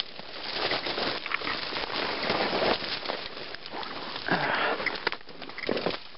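Dry branches and leaves rustling and scraping, with crunching footsteps, as someone pushes through overgrown brush.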